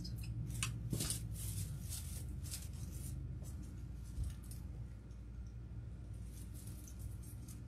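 Wire cutters snipping artificial flower stems: a series of faint clicks and snips, mostly in the first three seconds, with light handling noise after.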